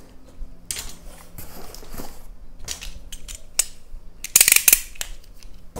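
Cardboard shipping box being opened and handled by hand: flaps and packed contents rustling, with scattered clicks and a louder cluster of rustles about four and a half seconds in.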